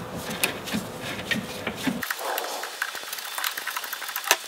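Light, irregular metal clicks and scraping as a bolt is threaded through a heim joint and its reducer spacers in a steering clevis, with one sharper click near the end.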